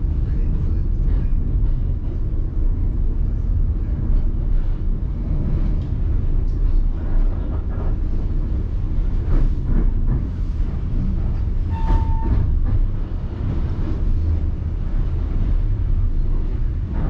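Passenger train car rumbling steadily along the track, heard from on board, with a short high tone about twelve seconds in.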